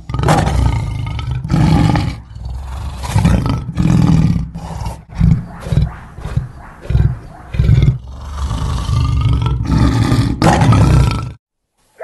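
Lion growling and roaring in a rapid series of loud, deep bursts, some drawn out and some short, cutting off suddenly near the end.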